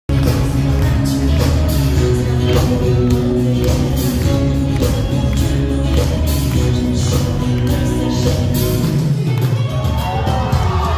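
Live band playing a pop-rock song: a woman singing into a microphone over electric guitar, bass and a drum kit keeping a steady beat, heard from the audience in a large hall.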